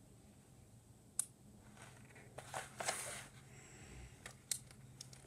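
Faint handling of paper cut-outs: quiet rustling with a few sharp clicks, the loudest about a second in, and a short rustle around the middle.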